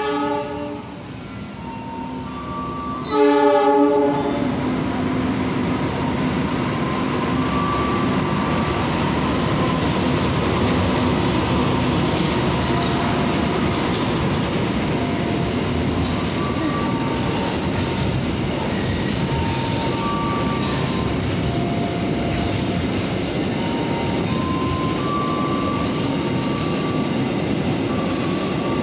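Diesel locomotive horn sounds briefly at the start and again about three seconds in, then a container freight train rolls through: a steady loud rumble of wheels on the rails, with short faint wheel squeals now and then.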